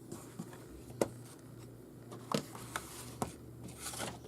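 A cardstock scrapbook mini album being handled, its pages turned: a few sharp taps and clicks, one about a second in and three more in the second half, then a short paper rustle near the end.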